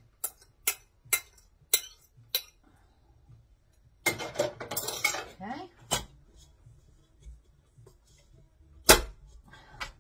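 A utensil taps sharply against a bowl about five times, roughly half a second apart, as beaten eggs are scraped out into a stainless steel stand-mixer bowl. This is followed by handling clatter against the metal bowl and a single loud knock near the end as the mixer is handled.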